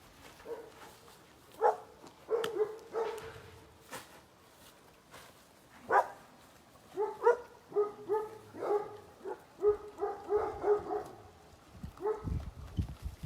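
A dog barking: a few single barks, then a quick run of short barks. Low rumbling comes in near the end.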